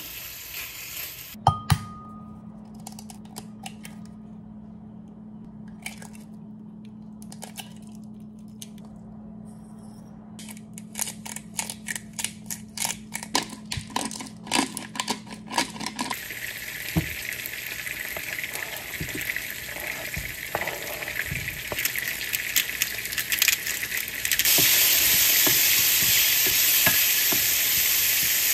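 Kitchen cooking sounds: a short stretch of sizzling in a frying pan, then sharp clicks and clinks at a glass bowl as eggs are cracked into it, over a steady low hum. Then frying sizzle returns and jumps much louder near the end, as tomato wedges fry in oil and are stirred with a wooden spatula.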